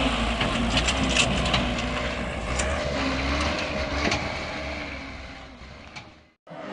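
A heavy vehicle's engine rumbling, with scattered cracks and crunching. It fades away about two-thirds of the way through and cuts off abruptly near the end.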